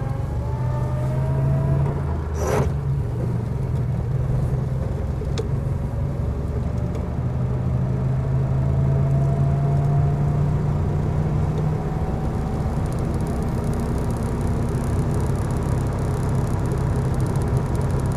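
A 1935 Rolls-Royce 20/25's straight-six engine running as the car drives at town speed, heard from inside the cabin as a steady low hum. A faint whine climbs slowly in pitch as the car gathers speed. There is a single sharp click about two and a half seconds in.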